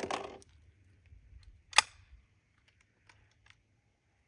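Action of a Winchester Model 77 semi-automatic .22 rimfire rifle being worked by hand: a short rattling clack at once, then a single sharp metallic snap about two seconds in, followed by a few light clicks.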